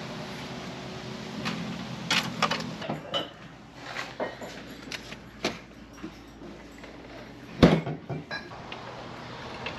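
Household handling noises: a shed door being opened, then scattered knocks, clicks and clinks as items are taken from a refrigerator. One loud thump about three-quarters of the way through as the refrigerator door is shut.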